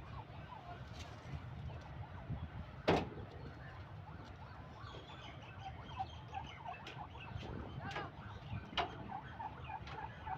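Birds chirping in many short, quick notes over a low background rumble, thickening about halfway through. A few sharp clicks cut in, the loudest about three seconds in.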